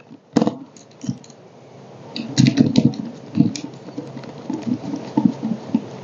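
Handling noise of a wire being fastened into a magnetic contactor's A1 coil terminal: one sharp click about half a second in, then a run of small irregular clicks and rustles from the terminal screw, plastic housing and wire.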